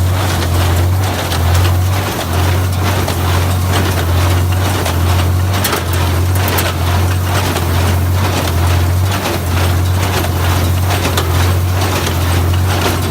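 Tractor engine running under load while driving a small square hay baler through the PTO: a steady low engine hum under the baler's regular mechanical clatter.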